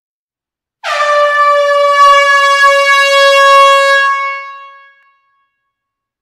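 A shofar blown in one long, steady blast that begins sharply about a second in and fades away after about four seconds.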